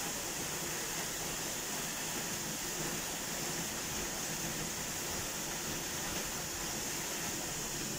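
Misol-Ha waterfall's water falling onto rocks: a steady, hissing rush that stays even throughout.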